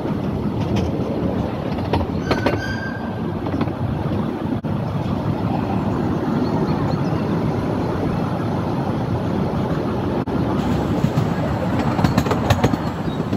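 15-inch gauge steam-hauled park railway train running, heard from an open passenger car: a steady rumble of wheels on the rails. Short runs of clicks from the wheels come about two seconds in and again near the end.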